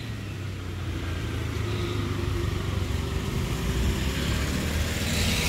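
A car engine running on the street close by: a steady low hum that grows louder toward the end, with a rushing sound near the end.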